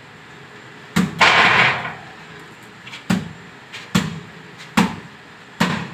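A bare fist punching a green young coconut against a concrete floor: five hard thumps, the first followed by a longer noisy burst, then four more at a steady pace. The coconut has not broken.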